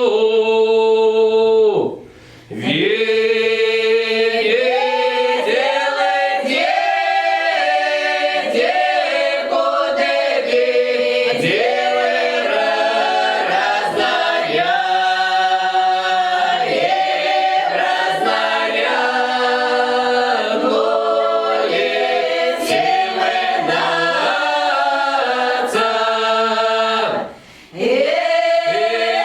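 Russian lyrical folk song sung a cappella by several voices in drawn-out, melismatic village style, with two short breaks for breath, one about two seconds in and one near the end.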